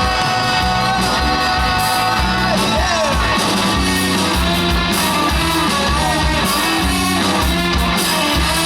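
Rock and roll band playing live: electric guitar, bass and drum kit, with shouted vocals.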